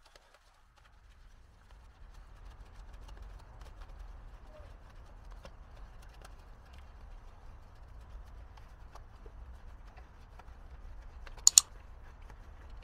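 Sponge scrubbing a foam-covered alloy wheel: soft wet rubbing with many small ticks over a low rumble, and two sharp clicks close together near the end.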